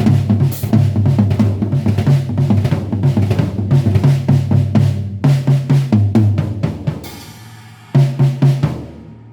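Rogers tom-toms on a drum kit played in rapid fills, many strokes a second with deep ringing tones. About seven seconds in the playing stops while a ringing fades out, then a short burst of strokes follows.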